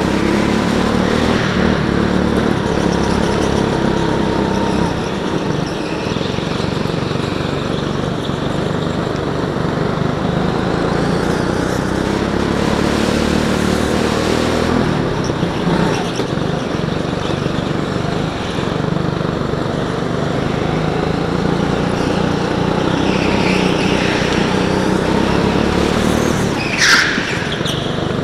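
A go-kart's small petrol engine, heard from on board, running hard and rising and falling in pitch with the throttle through the corners. Near the end, short high tyre squeals come as the kart slides through a tight turn.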